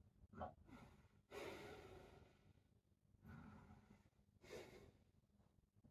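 A man's faint, slow breathing, several breaths in and out, while he holds a deep backbend (wheel pose).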